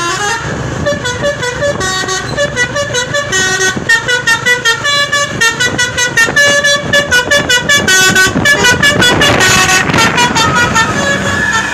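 Bus 'telolet' (basuri) multi-tone horn playing a fast melody, its notes stepping up and down and pulsing several times a second. A brief noisy rush cuts across the tune about nine to ten seconds in.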